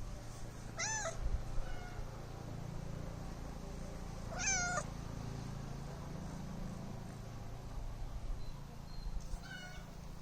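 Domestic cat meowing three times, short meows that rise and fall in pitch: one about a second in, one at about four and a half seconds, and a fainter one near the end.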